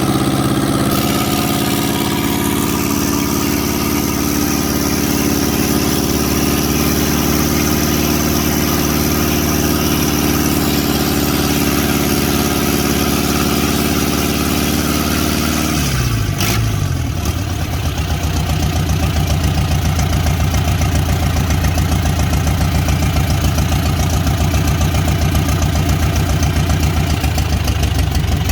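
Rebuilt marine-converted Mitsubishi PS135 diesel engine running on test at raised speed, then the revs fall a little past halfway and it settles into a steady idle.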